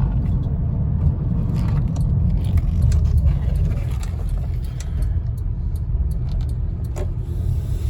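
2010 Honda Odyssey minivan running, heard as a steady low rumble of vehicle noise with a few faint clicks. The van is running smoothly after a fuel system cleaner cured its rough idle and misfire.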